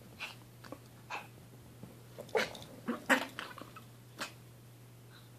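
Persian kitten and teacup poodle play-fighting: a string of short, sharp animal noises, the loudest clustered about two to three seconds in, with one more just after four seconds.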